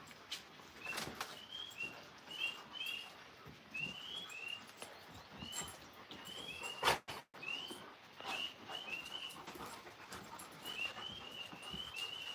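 Alaskan Malamute making short high-pitched squeaks over and over, singly, in quick pairs and in runs. Now and then a soft thump or rustle, with one louder knock about seven seconds in.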